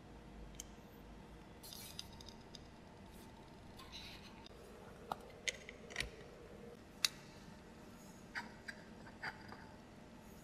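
Faint, scattered sharp clicks and light clinks of miniature metal kitchen utensils being handled, as a tiny slotted skimmer is lifted off the hooks of a utensil rail. The loudest clicks cluster in the middle, with a few more near the end.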